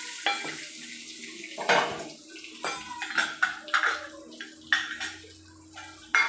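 Hot oil in a kadai sizzling and crackling as whole spices and cashews go in, with many sharp clinks and knocks of steel pots and utensils.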